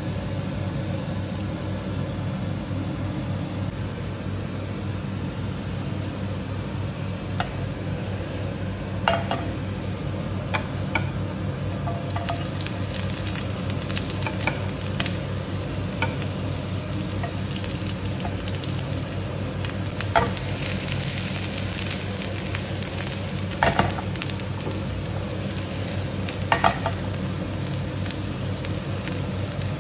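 Sliced shallots frying in ghee in a nonstick frying pan: a steady sizzle with a few sharp knocks as they are stirred, over a steady low hum.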